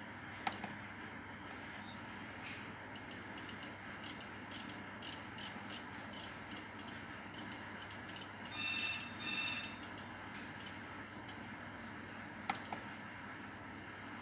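Nuve NB5 water bath's digital controller beeping as its knob is turned through settings: a quick run of short high beeps, two or three a second, with a longer beep of several pitches about eight and a half seconds in. A sharp click with a beep near the end as the knob is pressed.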